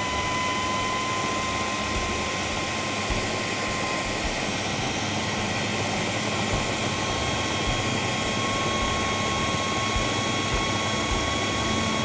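Countertop food processor running steadily with a high motor whine, chopping roasted eggplant, onion, garlic and tahini into a coarse baba ghanoush.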